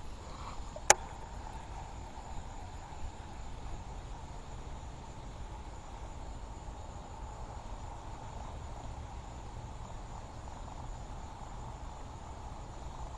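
Steady outdoor ambience with a continuous insect drone over a low rumble, and a single sharp click about a second in.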